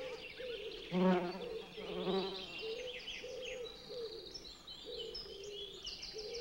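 Bees buzzing around foxglove flowers, the buzz wavering up and down in pitch, loudest about one and two seconds in.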